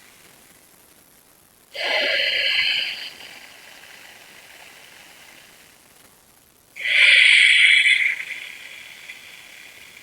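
A person's slow, deep breaths close to the microphone: two audible breaths, each about a second and a half long, some five seconds apart, with the breath kept on the throat as a lead-in to Ujjayi breathing.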